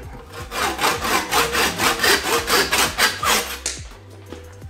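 Hand saw cutting through a wooden hammer handle to trim off its excess end, in quick even strokes of about three a second that stop a little over three and a half seconds in.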